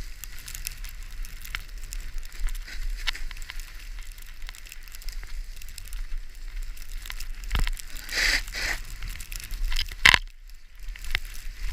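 Skis scraping and chattering over snow and ice, a continuous crackling hiss full of small clicks, with a low wind rumble on the microphone. Near the end a sharp knock cuts in and the sound briefly drops away.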